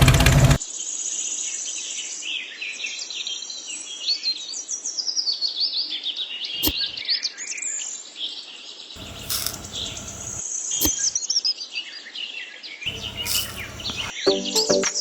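Small birds chirping and twittering, many quick rising and falling calls overlapping throughout. A couple of brief bursts of noise and two sharp clicks cut in partway through.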